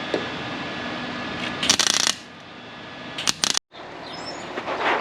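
MIG welder arc crackling in short bursts of about half a second, tacking a rusty steel firewall patch over a steady hum. The shielding gas was never turned on, so the arc is running bare and the welds come out poor.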